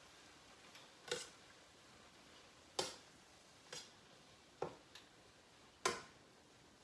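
Light clinks and taps of stainless-steel cookware as pieces of codfish are placed in a skillet: about six short, sharp knocks, irregularly spaced, the loudest near the end.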